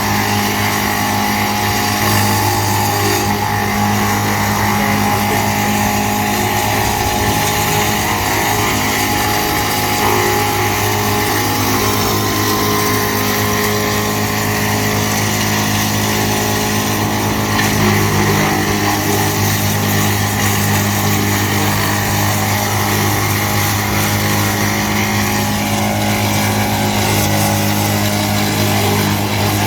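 GL&D M175DS tractor-mounted woodchipper running at steady speed, driven by the tractor, a constant low hum with a rushing noise over it.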